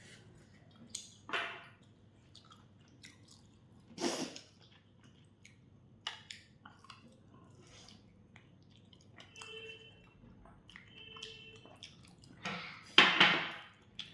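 People chewing fried chicken close to the microphone: wet mouth noises and small clicks, with a few louder sudden sounds, the loudest near the end.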